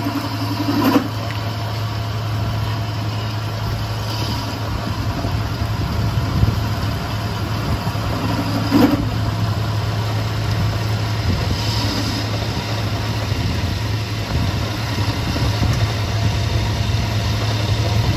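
Metal lathe running steadily with a low hum while its tool bit turns a steel CV axle shaft. Two short, sharp sounds come about a second in and again just before the middle.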